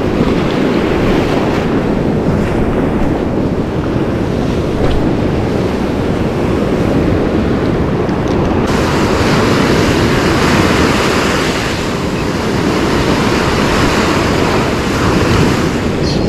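Ocean surf breaking and washing up the beach, with wind rumbling on the microphone. A little past halfway the hiss of the water turns suddenly brighter and stays so.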